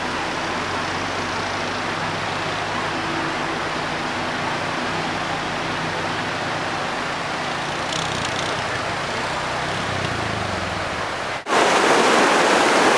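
Steady rushing noise of flash-flood water running across open ground, with a faint low hum beneath it. About eleven and a half seconds in it cuts suddenly to a louder, closer rush of floodwater.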